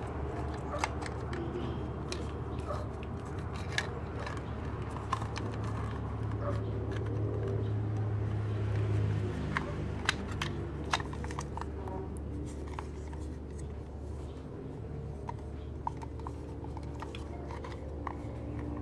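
Hands fitting a mini juicer's motor and wiring back into its plastic housing: scattered light clicks and taps of plastic parts, over a steady low hum in the background.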